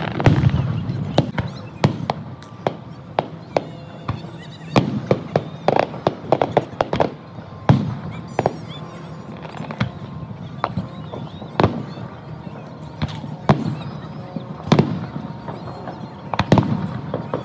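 Aerial fireworks shells bursting one after another in an irregular string of sharp bangs. A dense run of crackling pops comes about five to seven seconds in.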